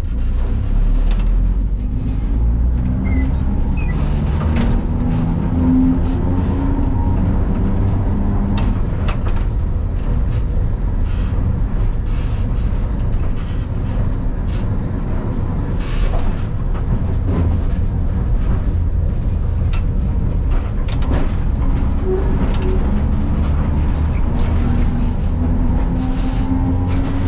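Vintage electric tram running in service: its traction motors whine, the whine rising as the tram accelerates near the start and again near the end. The wheels rumble on the rails with scattered clicks and knocks over rail joints and points.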